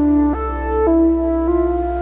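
Slow ambient background music: a melody of held notes over a steady low bass note.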